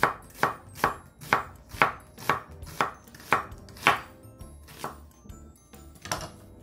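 Chef's knife slicing an onion into thin strips on a bamboo cutting board, each cut ending in a sharp knock on the board, about two cuts a second. After about four seconds the cutting stops, leaving only two softer knocks.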